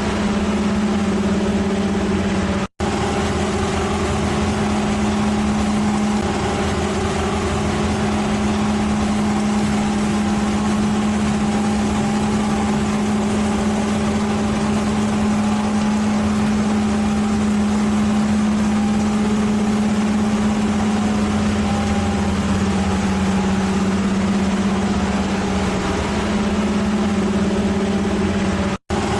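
Heavy machine's engine running at a steady pitch, a constant drone. It cuts out to silence for an instant twice, about three seconds in and near the end.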